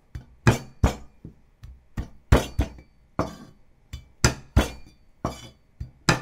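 Chinese cleaver striking pieces of fresh ginger against a wooden cutting board to flatten them: a run of sharp knocks, about two to three a second, some with a brief metallic ring from the blade.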